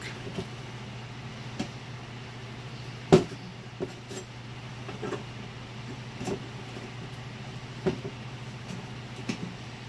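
Metal exhaust pipe sections clinking and knocking as they are handled and pushed together for a test fit, with one sharp knock about three seconds in and lighter ones scattered after, over a steady low hum.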